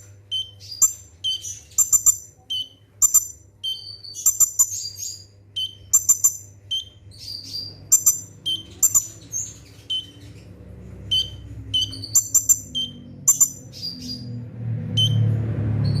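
Kolibri ninja sunbird calling in rapid, sharp high chirps and short trills, the quick 'shooting' song that keepers play to set their own birds singing. A low rumble swells near the end.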